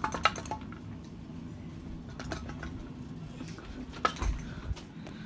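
42-inch Hunter Low Profile II ceiling fan running with a steady low hum, with a few sharp clicks and clinks at the start and again about four seconds in.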